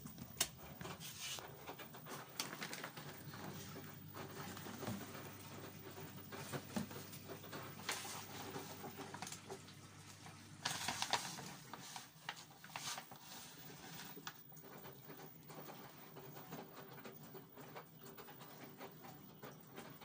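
Faint handling noise: crinkling and rustling of a plastic pouch of detergent pods and small clicks as a pod is taken out, loudest in a burst about halfway. A low steady hum underneath stops at about the same point.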